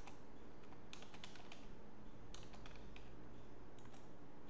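Computer keyboard typing: short runs of quick keystrokes with pauses between them, over a steady low background hum.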